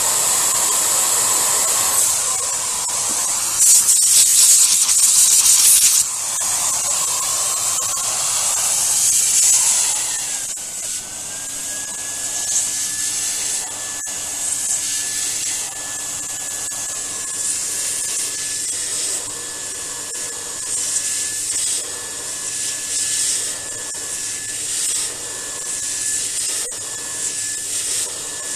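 TubQ TS1 central vacuum hose sucking dust out from between the pleats of its clogged filter. The hiss of the airflow swells and fades as the nozzle is worked along the pleats, and is loudest about four to six seconds in. A steady high whine and a low hum settle in about ten seconds in.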